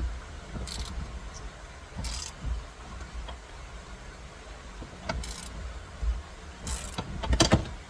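Ratchet and 21 mm socket running the steering wheel's retaining nut down onto the steering shaft: a few short bursts of ratchet clicking and metal clinks, spaced irregularly, the loudest near the end.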